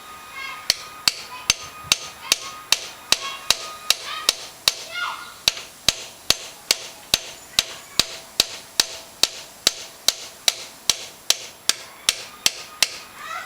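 Light, evenly spaced hammer taps on a screwdriver bit in an extension, about two or three a second, driving the bit into a seized points screw on a motorcycle's contact-breaker plate so it can be turned out without chewing the head.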